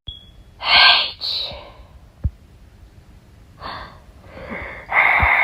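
A person voice-acting a cartoon character's yawning and sleepy breathing: a loud sharp intake of breath about a second in, softer breaths, then a long, loud, noisy breath near the end leading into snoring.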